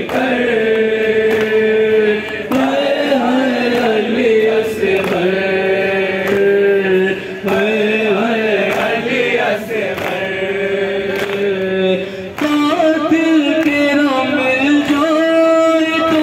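Group of men chanting a noha, a Shia mourning lament, in unison behind a lead voice on a microphone: long held sung phrases that pause every couple of seconds, moving to a new melodic line about twelve seconds in.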